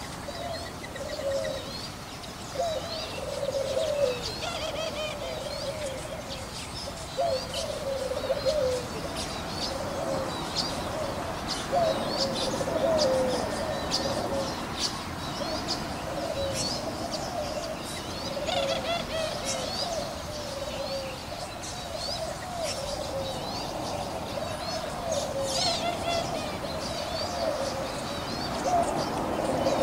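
Doves cooing in repeated low phrases, with smaller birds chirping sharply and briefly above them.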